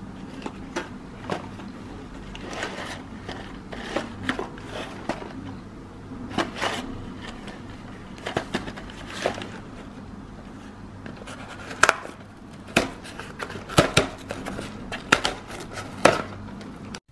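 Cardboard chocolate box being handled: scattered taps, clicks and scrapes of fingers on the card, louder and closer together near the end as the perforated tear strip is pulled open.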